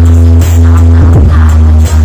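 Electronic dance music played very loud through a Z3 Audio mobile sound system's stacked subwoofer and horn cabinets, driven by a Bantres Audio power amplifier. A deep steady bass runs throughout, with bass hits that drop in pitch about every 0.7 seconds.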